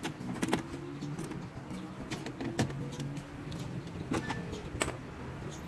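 Sharp clicks and knocks from work on a Ford EcoSport's door and its door latch mechanism, over a faint on-and-off low hum.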